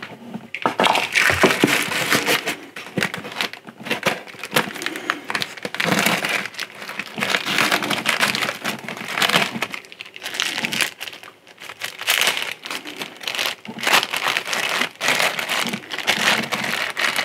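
Clear plastic bags crinkling and rustling as hands handle and open them, an irregular run of crackles that eases for a moment about eleven seconds in.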